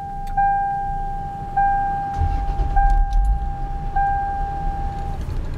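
A dashboard warning chime sounds as a steady tone, restarting about every 1.2 seconds and stopping near the end. The Lexus GS300's turbocharged 2JZ-GE inline-six starts and its running sound comes up about two seconds in, then it idles.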